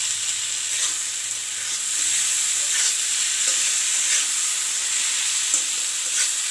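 Sliced onions, tomatoes and cashews sizzling steadily in hot oil in an iron kadhai, stirred with a metal spatula that scrapes across the pan again and again.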